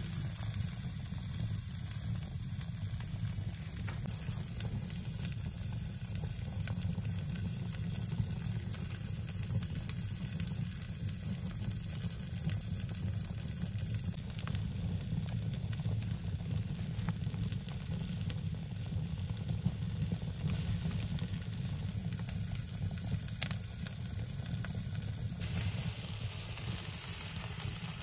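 Wood fire burning in a mud-built fireplace: a steady hiss and low rumble with scattered small crackles.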